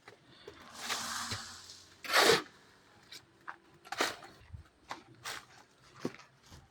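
Hand tools scraping on a building site: a series of separate rasping strokes, roughly one every second or so, with a few small knocks between them.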